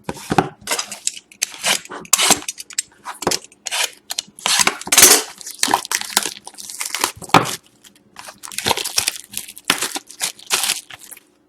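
Cardboard trading-card mini boxes torn open and their packaging crumpled by hand, in a run of short, irregular rips and rustles.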